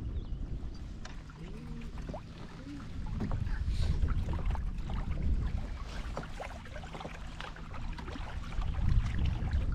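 Small waves lapping and slapping against the side of a canoe in irregular little splashes, over a low rumble of wind on the microphone.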